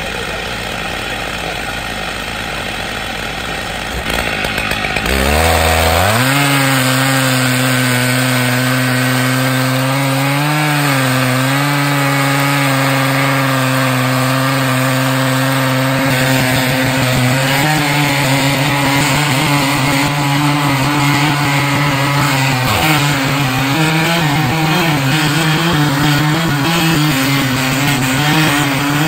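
Stihl MS880 two-stroke chainsaw on an Alaskan mill, rising to full throttle about five seconds in and held at high revs, its pitch wavering and dipping a little as it cuts through the log.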